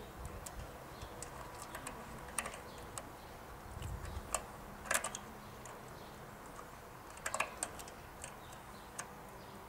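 Irregular small metallic clicks and taps as a drive Bowden cable end and its tension spring on a ride-on mower are worked by hand, with a few sharper clicks about five and seven seconds in.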